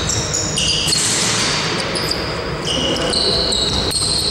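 Sounds of an indoor basketball game: sneakers squeaking on the court floor in several short, high chirps at different pitches, over the steady noise of play.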